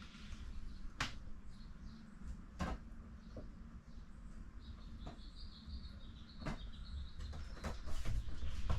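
Scattered light knocks and clicks of hands handling and placing things, with a brief wavering high squeak about five seconds in, over a steady low hum.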